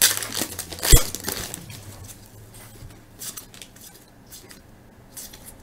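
A baseball card pack being opened and its cards handled. There is a sharp knock about a second in, then faint clicks and rustles as the cards are flipped through.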